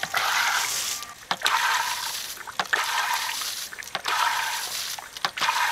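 Shoreline Marine 36-inch manual hand bilge pump being stroked, about five strokes a little over a second apart. Each stroke sends a gush of water pouring out of the outlet onto the grass, with a sharp knock from the pump at each turn of the stroke.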